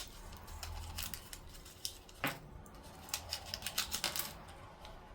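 Hands handling small plastic toy pieces and packaging: scattered light clicks and taps with some rustling, one sharper click a little over two seconds in.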